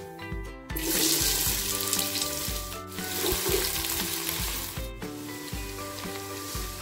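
Sliced onions and whole spices frying in hot oil: a loud sizzle starts suddenly about a second in and eases to a quieter sizzle near the end, as the onions are stirred with a wooden spatula. Background music plays throughout.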